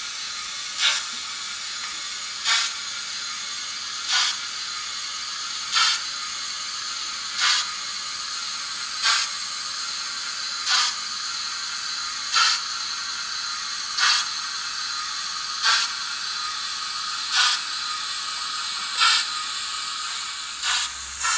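Digital steam sound from a model Southern H2 Atlantic locomotive's Zimo sound decoder and small speaker, with Mr Soundguy sounds: a steady steam hiss with slow exhaust chuffs about every one and a half seconds, coming faster near the end.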